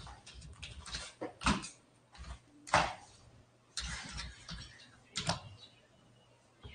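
A few short knocks and rustles, about one a second with quiet gaps between, as someone moves about and handles things close to the microphone.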